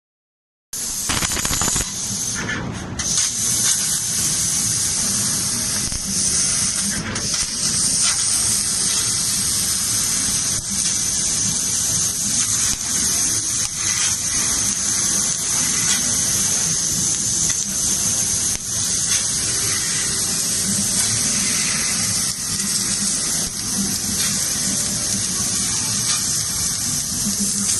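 Ironwood CNC fiber laser cutting machine running: a steady, loud hiss from the cutting head, starting under a second in after a brief silence.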